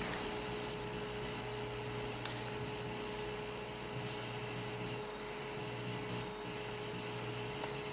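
Room tone of a hall: a steady hum and hiss with a constant low tone, broken by a faint click about two seconds in and another near the end.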